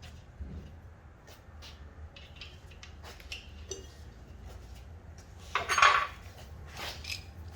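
Metal clinks and taps of steel bolts, nuts and mounting plates being handled and fitted, with a louder clattering scrape of metal about six seconds in.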